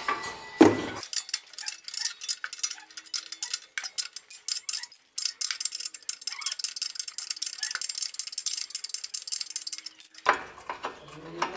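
Ring spanner working the silencer mounting bolt loose: a quick, irregular string of small metallic clicks and clinks as the steel spanner turns and shifts on the bolt and bracket.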